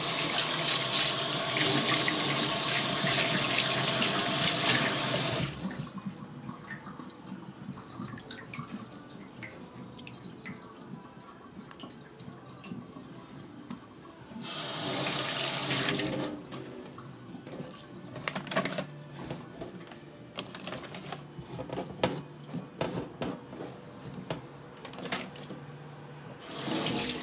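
Kitchen tap running into a stainless steel sink as a cleaned mackerel is rinsed under it, for about five seconds, then again briefly about halfway through and once more near the end. In between, quieter small clicks and knocks of handling.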